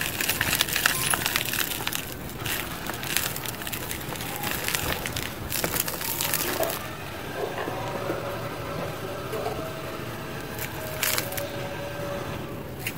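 Chunks of dry cement crunching and crumbling apart in bare hands, with a dense run of crackles for the first several seconds. After that, loose cement powder and grit sift through the fingers into a plastic tub, quieter, with scattered crackles.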